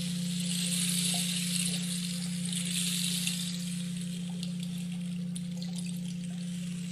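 Running water with a steady low hum beneath it; the water's hiss swells for the first few seconds, then settles.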